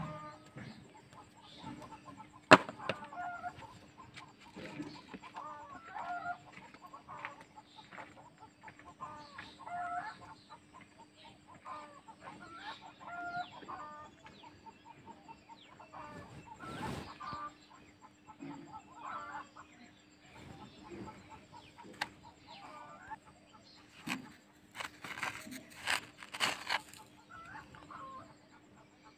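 Chickens clucking repeatedly in short calls throughout, with one sharp click about two and a half seconds in and several brief noisy bursts near the end.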